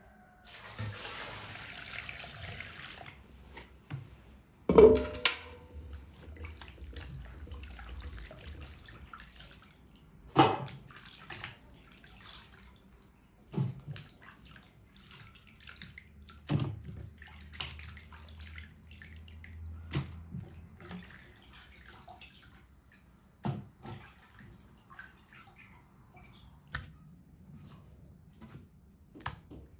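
Water poured from an enamel bucket into an enamel basin for a couple of seconds, then hands washing tomatoes in the water: splashing and sloshing, broken by several sharp knocks, the loudest about five seconds in.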